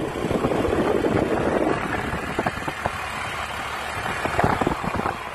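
Motorbike running along a road while its passengers ride, the engine mixed with steady wind noise buffeting the phone's microphone.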